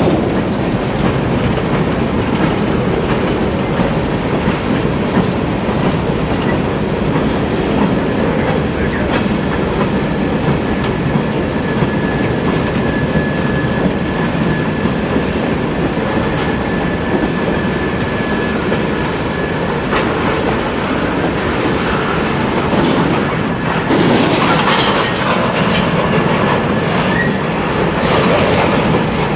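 Freight cars rolling past with steady wheel-on-rail clatter and clickety-clack over the rail joints. A thin, steady squeal rides over it through the middle.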